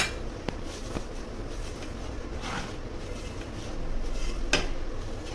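Hands mixing oil into dry wheat flour in a stainless-steel bowl: soft rustling and rubbing, with a single light knock against the bowl near the end.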